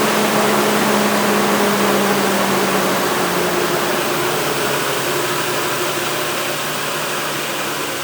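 Nissan VG30 3.0-litre V6 running at a steady idle, its pitch settling slightly lower about three seconds in.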